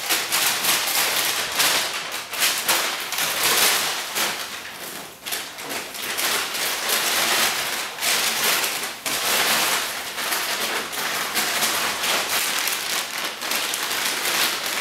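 A large folded paper road map being unfolded, shaken and handled: continuous loud crinkling and rustling paper, with a short lull about five seconds in.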